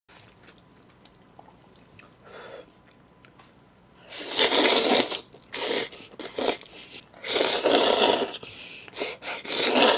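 Jjajangmyeon (black bean sauce noodles) slurped up from the bowl in several loud pulls, starting about four seconds in. The longest slurps come about four and seven seconds in. Before that there are only faint clicks.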